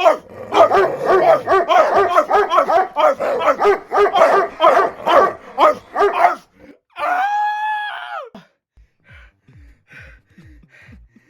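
Rapid, excited dog-like barking, several yaps a second, ending in one long howl that falls in pitch at its end. Faint low beats follow near the end.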